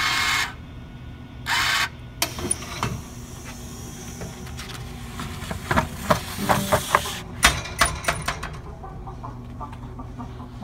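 Egg vending machine at work: its bill acceptor gives two short whirs as dollar bills are drawn in, then the mechanism clicks and clatters as a tray of eggs is pushed out, busiest about six to seven seconds in.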